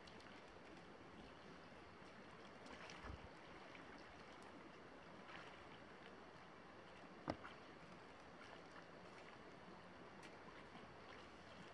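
Faint steady rush of river water with a few small splashes from Eurasian otters swimming and rolling at the surface; one sharp short splash or knock about seven seconds in.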